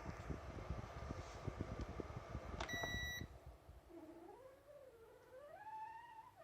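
Sharp KC-H50 air purifier: the fan runs with a rumble, then a short electronic beep sounds about two and a half seconds in and the fan noise drops. A wavering squeal follows, sliding up and down in pitch. It is the abnormal キュルキュル squeal the owner reports from the unit after only a month of use.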